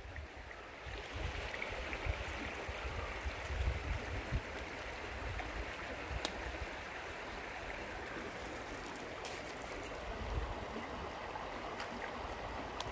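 Shallow rocky creek babbling steadily over stones, with a few low thumps and faint clicks now and then.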